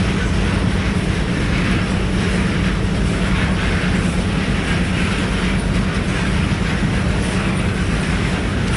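Freight train rolling past at steady speed: continuous loud wheel-on-rail noise with a steady low hum.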